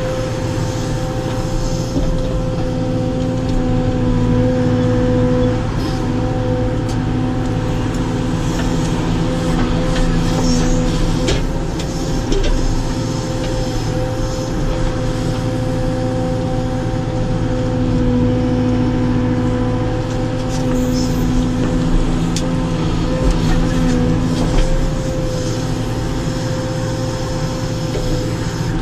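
Caterpillar 432F2 backhoe loader's diesel engine and hydraulics running steadily under load while the backhoe digs, heard from inside the cab, with a steady whine over the engine drone. A few short knocks come in the middle.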